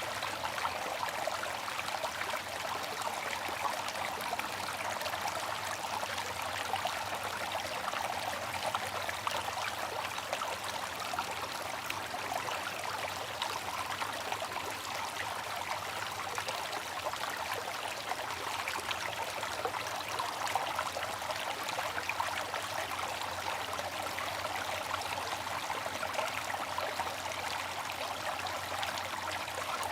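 Bamboo water fountain, water trickling steadily.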